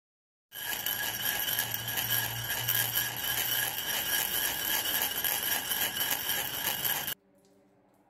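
Channel logo intro sound effect: a dense, bright sound with several steady high ringing tones, starting about half a second in and cutting off suddenly about a second before the end.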